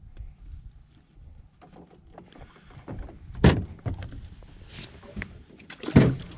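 Two loud knocks on a fishing boat, about two and a half seconds apart, with lighter clicks and rattles of handled gear between them.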